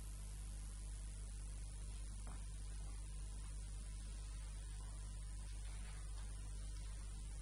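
Steady electrical mains hum with an even background hiss, unchanging throughout.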